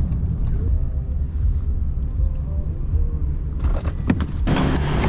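Truck engine and road rumble heard from inside the cab, a steady low drone. About three and a half seconds in come a few sharp clicks and a rise in noisier sound, followed by a steadier low engine tone.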